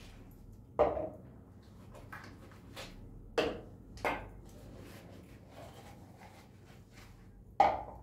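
Small kitchen containers picked up and set down on a stone countertop: four sharp knocks spread through, the first and last the loudest, with faint handling noise between.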